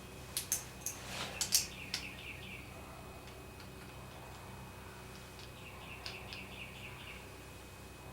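Several sharp metallic clicks and clinks of engine parts being handled during a motorcycle top-end reassembly, the loudest about a second and a half in. Twice there is a short high chirping trill, over a steady low hum.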